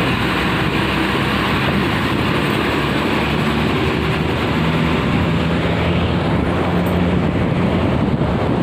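Bus engine running steadily at speed, with a continuous rush of tyre and road noise and a low engine hum throughout.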